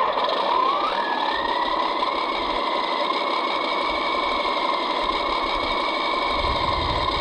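Diesel engine sound from an RC scale Kirovets K-700 tractor: the engine starts with a whine that rises in pitch over about the first second, then settles into a steady idle.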